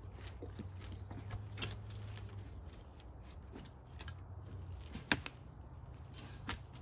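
Hands brushing and rubbing chips and sawdust off the freshly cut top of a log chopping block: scattered small clicks and rustles, with one sharp tap about five seconds in and a short brushing swish near the end. A faint steady low hum runs underneath.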